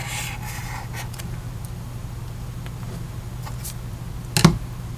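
Steady low electrical hum, with a brief rustle of a paper sheet being handled at the start and one sharp tap on the paper or desk about four and a half seconds in.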